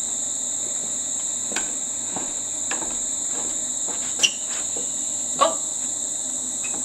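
Steady, high-pitched chorus of insects chirring outdoors, with a few brief sharp sounds on top, the loudest a little past four seconds in.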